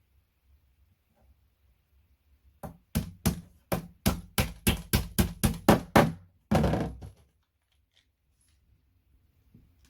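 A quick run of about a dozen sharp knocks, roughly four a second, on the flat-pack bedside table's parts during assembly. It is followed by a short scraping sound.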